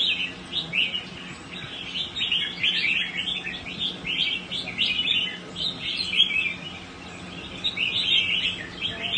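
Caged songbirds singing, a dense, unbroken stream of short, quick chirping phrases that thins briefly near the end.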